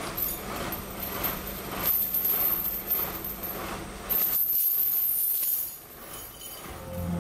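Iron chains on an elephant's legs clinking and rattling in a run of short metallic jangles as they are handled. A steady hiss comes in for about a second and a half midway.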